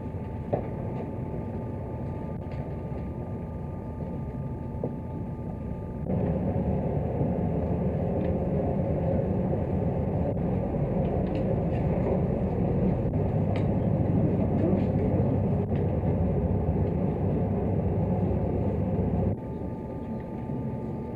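Steady low rumble of room ambience from a crowded playing hall, recorded on old newsreel sound with a faint constant hum. It gets louder at an edit about six seconds in and drops back near the end. There is one sharp click about half a second in.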